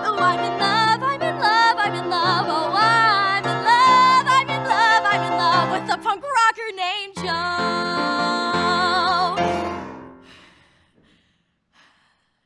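Solo female voice singing a musical-theatre song with piano accompaniment, ending on a long final note held with vibrato over a sustained piano chord that dies away about ten seconds in.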